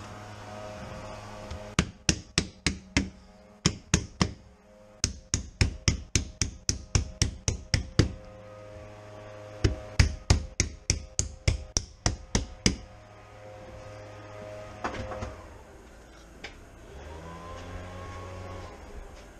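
Rapid sharp knocks, about four a second, in three runs with short pauses between them, stopping about two-thirds of the way through.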